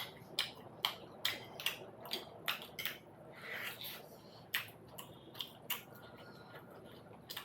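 Close-up mouth sounds of someone eating momos: wet chewing and lip smacks, heard as sharp wet clicks about two a second, with a short gap a little past the middle.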